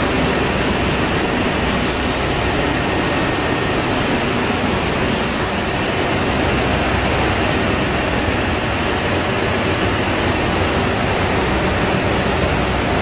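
Steady mechanical din of an ice pop filling, sealing and sterilising production line running, with a few light clicks in the first half.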